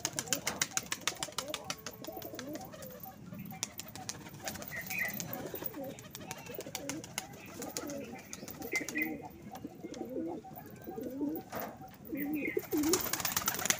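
Domestic pigeons cooing: a string of low, warbling coos, one after another, through the middle and later part. A rapid patter of faint clicks comes in the first few seconds.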